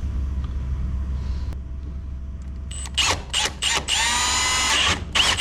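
A power drill with a 1/2 inch bit drilling a hole for the transducer cable. It starts about three seconds in with a few short trigger bursts, then runs for about a second with a whine that sags in pitch under load, then starts again near the end. A steady low rumble sits underneath before the drilling starts.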